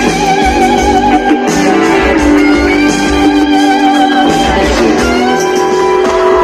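Live rock band music over a concert sound system: guitars playing a melodic line with wavering, bent notes over a steady low accompaniment.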